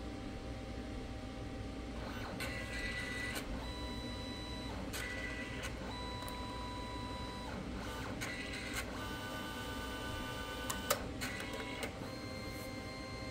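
HPRT photo printer starting a print job: its motors whir in several short runs, with steady whining tones, ahead of the first (yellow) colour pass.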